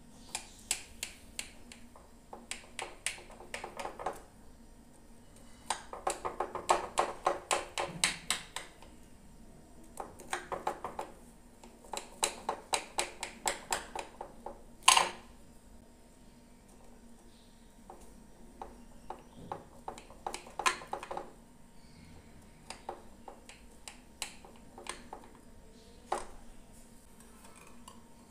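Knife sawing through a crusty brownie slab in a glass baking dish: bursts of rapid scraping strokes, each lasting a second or more, with pauses between cuts and one sharp click about 15 seconds in.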